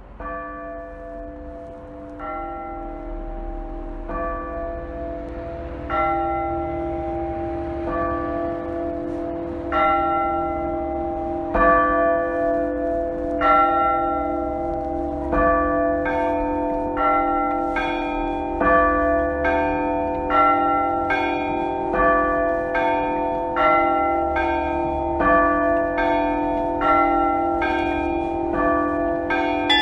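Orthodox church bells being rung by hand, struck about every two seconds over the steady hum of the ringing bells. From about halfway more bells join and the strokes come faster as the peal builds.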